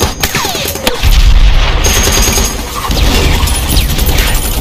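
Battle sound effects: rapid machine-gun fire with bullets striking a concrete bunker and a couple of falling whines. About a second in comes a heavy explosion boom, and gunfire and low rumble carry on after it.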